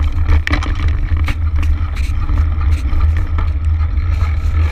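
Mountain bike rolling over a gravel track, its tyres crunching and the bike rattling in short clicks, under heavy wind rumble buffeting the camera's microphone.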